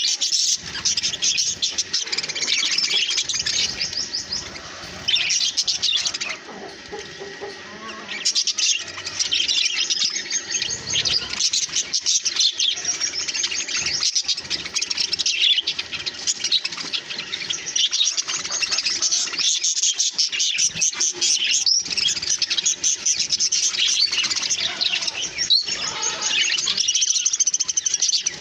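A flock of budgerigars chirping and chattering continuously, many overlapping rapid chirps, with a quieter stretch about six to eight seconds in.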